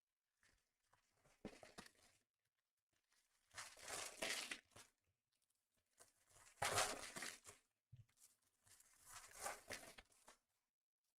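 Foil trading-card pack wrappers being torn open and crinkled, four separate rips a couple of seconds apart.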